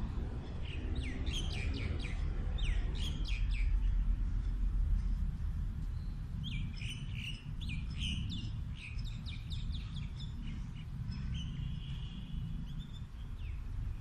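Birds chirping in two bouts of quick, repeated calls, the second bout longer, over a steady low rumble.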